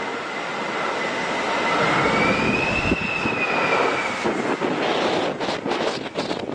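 Jet engines of an Airbus A320-family airliner on landing approach: a steady rushing noise with a whine that rises in pitch to a peak about halfway through and then falls away. Near the end, gusts of wind buffet the microphone.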